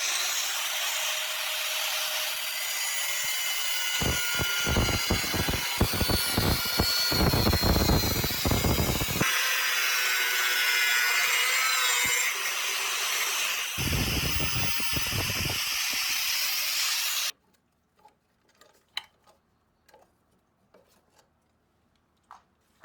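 Power tool grinding steel on a forged knife blade: a steady abrasive hiss with whining tones that wander up and down in pitch, cutting off abruptly about three-quarters of the way through and leaving only a few faint clicks.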